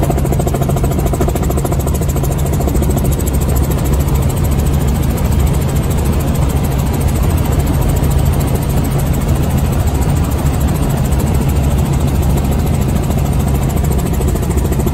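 Helicopter engine and rotor running steadily: a loud, unbroken low drone.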